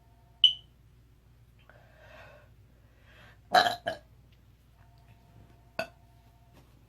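A woman burping: a loud burp about halfway through, quickly followed by a shorter second one, and another short one near the end. A short, sharp sound comes about half a second in.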